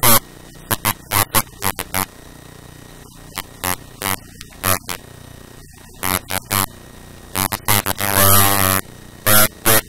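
Irregular bursts of loud, buzzy static crackle: many short ones and a longer buzzing one about eight seconds in.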